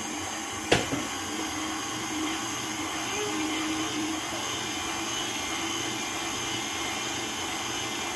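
Electric kitchen mixer motor running steadily at medium speed, whirring through a thickening cream cheese mixture. A single sharp knock comes about three-quarters of a second in.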